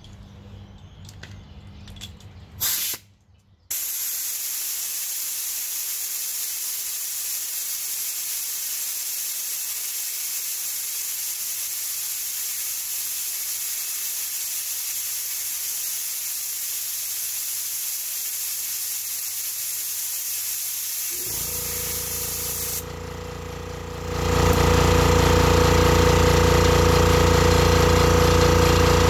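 Compressed air hissing steadily out of the hose of a Campbell Hausfeld 20-gallon, 2 HP air compressor as the tank is bled down. Near the end the compressor's motor and pump kick on and run loudly, starting to recharge the tank.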